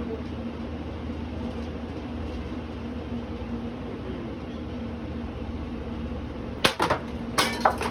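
Litex Schuster ceiling fan motor running at speed with a steady hum. Near the end comes a quick run of sharp, loud knocks as something strikes the spinning blades.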